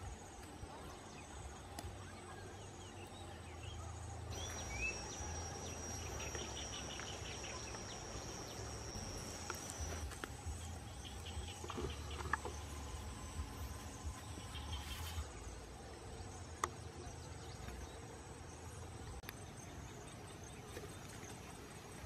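Insects calling, with a steady high-pitched insect whine from about four seconds in until about ten seconds, over a low rumble and a few sharp clicks.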